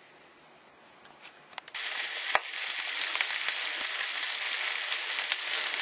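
Pieces of wild pork frying in a pan over an open fire: a steady sizzle full of small crackling pops. It starts abruptly a little under two seconds in, after a quiet start.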